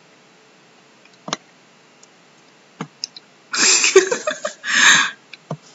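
A few single computer mouse clicks, then a breathy laugh in two loud puffs of air starting about three and a half seconds in.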